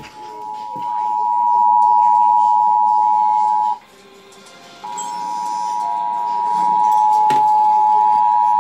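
Emergency Alert System attention signal: a loud, steady two-tone alarm announcing a tornado warning. It breaks off for about a second roughly four seconds in, then resumes.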